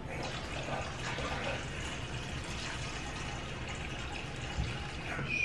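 Water running steadily from a kitchen faucet into a stainless steel dog bowl, filling it.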